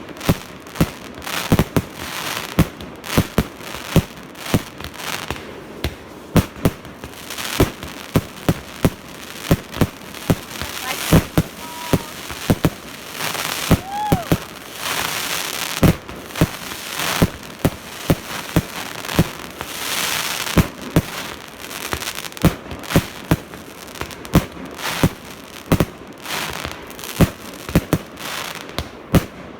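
Fireworks salute: a steady run of sharp bangs, about one or two a second, with crackling between them.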